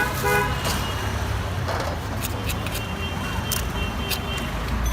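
Busy street traffic with vehicle horns honking in short toots, the clearest a few quick blasts right at the start, over a steady low traffic rumble.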